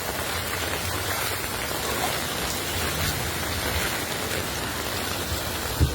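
Heavy hurricane rain falling steadily, an even hiss of rain hitting surfaces with a low rumble under it, and a brief low thump near the end.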